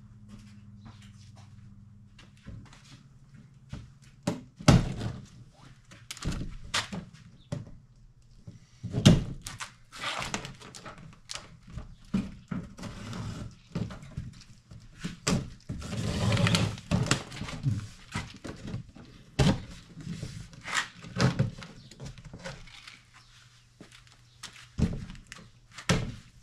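Irregular knocks, thumps and clatter of things being handled, with a denser scraping stretch about two-thirds of the way through. A low steady hum sounds under it for the first couple of seconds and again near the end.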